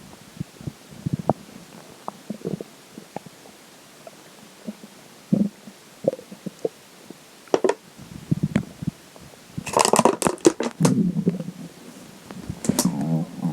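A person's stomach gurgling and growling with water in it, in short pops and rumbles. From about ten seconds in, loud bursts of crackling from a plastic water bottle being handled, with one more near the end.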